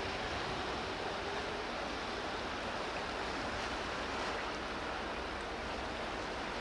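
Steady rush of wind and water wash around a passing River-class offshore patrol vessel, with a low rumble underneath and a faint hum in the first second or so.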